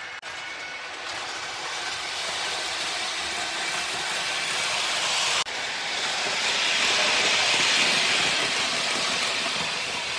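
Märklin H0 ICE model train running fast on the track, a steady rushing whir of motor and wheels that grows louder in the second half as it comes closer. The sound drops out briefly twice, near the start and about halfway through.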